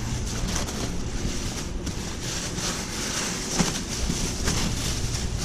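Steady rushing air from a spray booth's ventilation, with a cloth rubbing and swishing over a sanded car panel.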